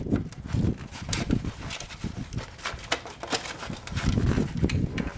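Irregular knocks, clicks and rustling of small parts being handled: a plastic turn-signal housing and its wires being worked through a mount.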